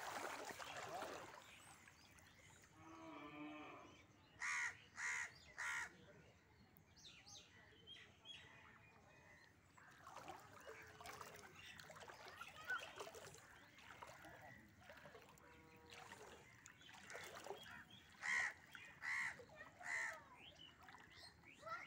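Crows cawing: a run of three short caws about four seconds in and another run of three near the end, over a faint background.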